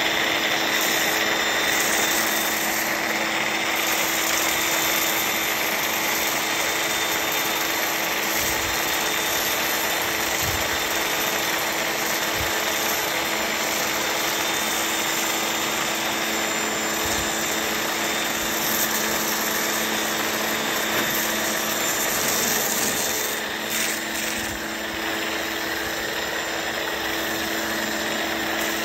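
Greenworks 1600 PSI electric pressure washer running steadily with a foam cannon, its motor and pump humming under the hiss of soap foam spraying out.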